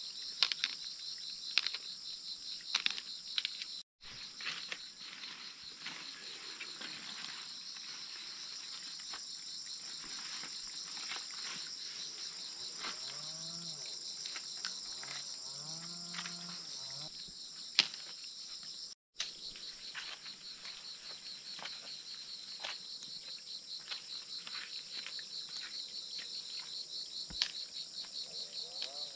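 Dense chorus of forest insects, a steady high-pitched buzz with a fast pulse, with scattered sharp clicks and rustles of hands in the undergrowth. A few short, lower wavering calls sound about halfway through.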